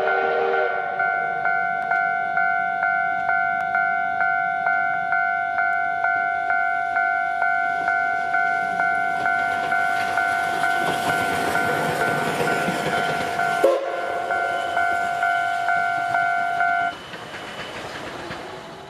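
Railway level-crossing warning bell ringing steadily at about two strikes a second, then stopping suddenly near the end. In the middle, a rushing noise from the C58 steam locomotive swells up under the bell and cuts off abruptly.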